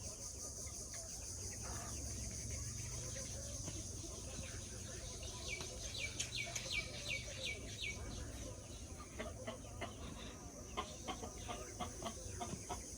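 Chickens calling, with a quick run of about eight short high-pitched calls in the middle, over a steady high insect buzz. A scatter of short taps follows near the end.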